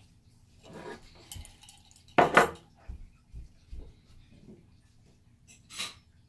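Paintbrush clinking and knocking against a ceramic mug as it is dipped and stirred in the water, a handful of separate clinks with the loudest about two seconds in.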